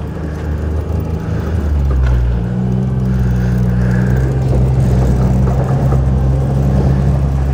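John Deere Gator utility vehicle's engine running under throttle as it drives off through snow on zip-tied rear tires that are now getting grip; the engine note rises a little in pitch and level in the first two seconds, then holds steady.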